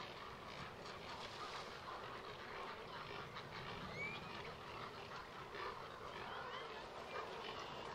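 Continuous chorus of harsh croaks and squawks from a nesting colony of herons, egrets, spoonbills and cormorants, with a couple of short whistled notes from a small bird, one about four seconds in.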